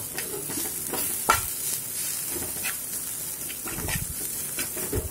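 Chopped cluster beans and ground peanut masala sizzling in oil in a frying pan over a low flame, stirred with a metal slotted spatula whose scrapes and taps against the pan come irregularly over the sizzle, with one sharper clack about a second in.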